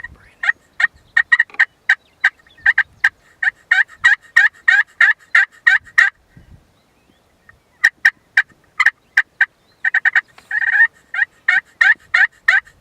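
Turkey calling: two long runs of short, sharp yelps, about four a second, with a pause between them and one longer, rougher note partway through the second run.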